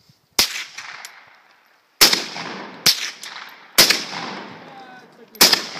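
Norinco SKS rifle in 7.62x39 firing five shots, spaced about one to two seconds apart, each followed by an echo that dies away.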